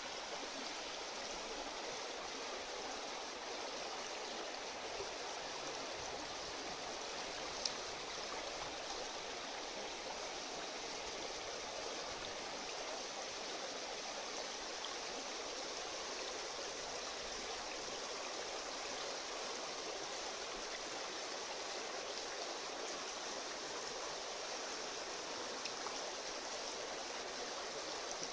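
Steady rush of moving water in a goldfish holding tank, even and unchanging, with a single sharp click about eight seconds in.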